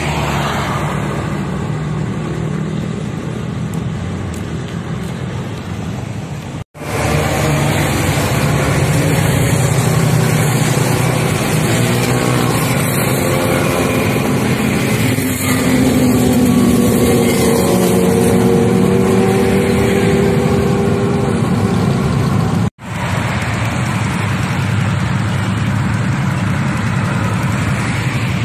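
Traffic on a highway: a steady rush of engines and tyres from passing cars and motorbikes, with engines revving up in rising pitch through the middle. The sound cuts out abruptly and briefly twice, about a quarter of the way in and again about four-fifths through.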